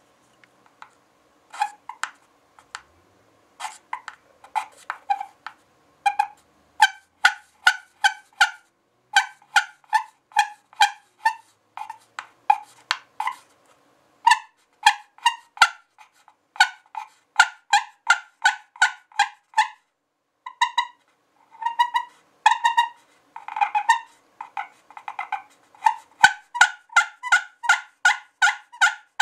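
Turkey pot call with a scratched glass playing surface over a walnut tone board in an oak pot, played with a striker: runs of short yelping notes, about two to three a second. A few longer, raspier notes come about two-thirds of the way through.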